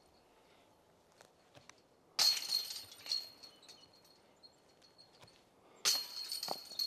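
Two disc golf putts striking the metal chains of a basket, each a sudden jangle of chains that rings on and dies away, the second about three and a half seconds after the first.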